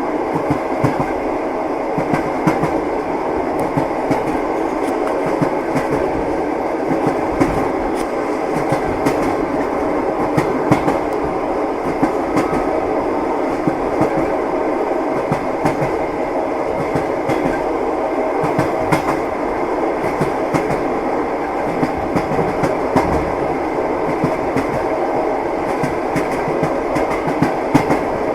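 Train running along the track: a steady rolling rumble with frequent, irregular clicks and knocks of the wheels over rail joints.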